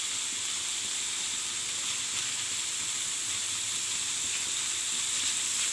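Chicken pieces frying in hot oil in a pan, a steady high sizzle, as a metal spatula turns them.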